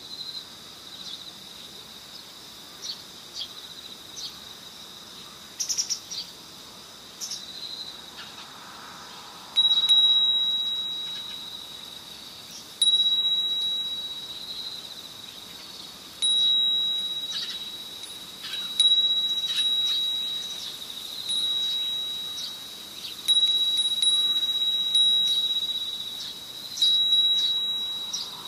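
Chimes struck again and again, a high ringing note every two to three seconds from about ten seconds in, each strike fading slowly, over a steady high-pitched tone.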